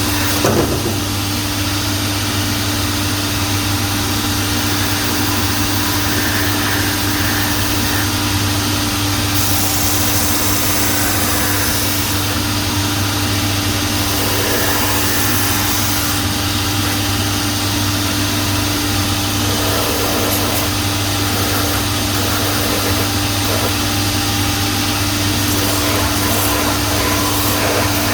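Shoe-repair finishing machine running steadily: a motor and dust-extraction hum, with an abrasive wheel sanding and smoothing the edge of the new sole and heel.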